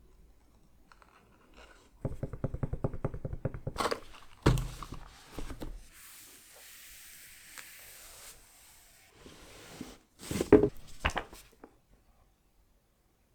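A cardboard collector box and its contents being handled: a fast even run of scraping ticks, a thunk, a soft sliding hiss, then a few sharp knocks near the end.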